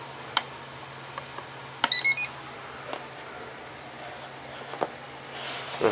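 Electric RC plane's speed controller giving a short electronic beep that steps up in pitch, right after a sharp click about two seconds in. Around it are a few light clicks and the rustle of hands on wires.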